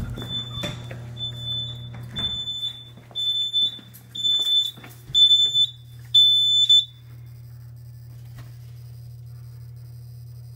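Fire alarm control panel's sounder beeping, a high-pitched pulse about every 0.7 seconds that grows louder, then stops about seven seconds in as a button on the panel is pressed. The panel is in alarm for smoke in the elevator machine room, with a low steady hum underneath.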